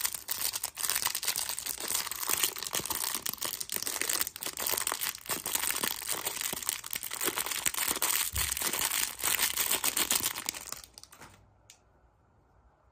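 Crinkly wrapping being crumpled and torn by hand, a dense run of crackling that stops suddenly about eleven seconds in.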